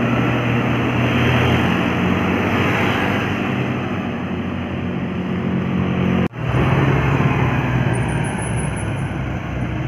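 Road traffic: a vehicle engine running with a steady drone and tyre and road noise. The sound cuts out for an instant about six seconds in, then carries on.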